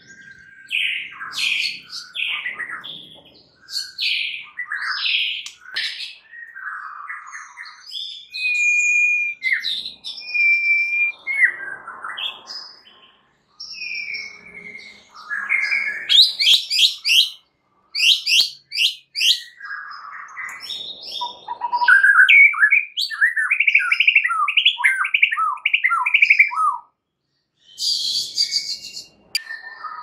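White-rumped shama singing a long, varied song of clear whistles, high buzzy notes and quick chattering runs. A fast run of about a dozen falling notes comes past the middle.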